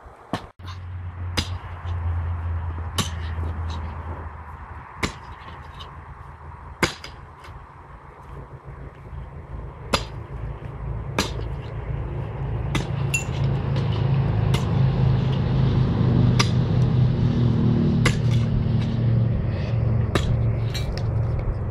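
A pick striking hard ground again and again, a sharp hit every second or two, while digging a trench under a driveway. A steady low hum runs underneath and grows louder about halfway through.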